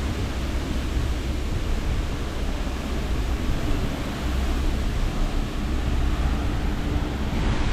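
Steady rumble and rush of a tour boat under way: the low drone of its engine mixed with wind and water noise.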